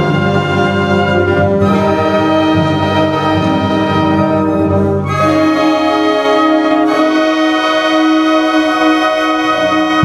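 Band music led by brass, trumpets and trombones, playing long held chords that change every couple of seconds; the bass drops out about halfway through.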